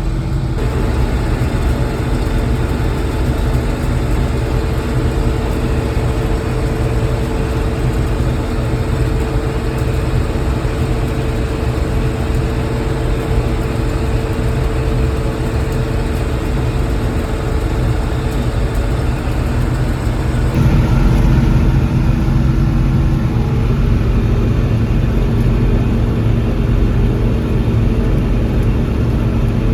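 John Deere 6600 combine running steadily in the field, a constant engine and machinery hum. About twenty seconds in the sound shifts abruptly and is a little louder afterwards.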